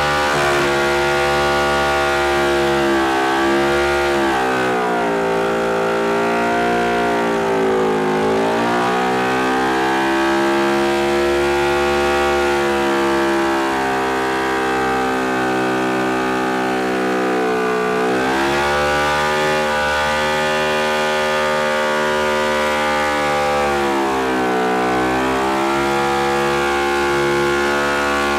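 Motorcycle engine held at high revs in a smoke-show burnout, a steady high wail whose pitch sags and climbs back about four times.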